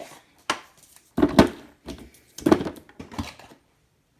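Food containers being set down on a refrigerator shelf: four short knocks, the two loudest about a second apart in the middle, then quiet.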